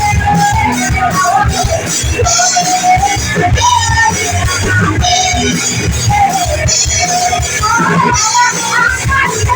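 Live rock band playing a song: drums with cymbals, bass and guitar under a sung melody line.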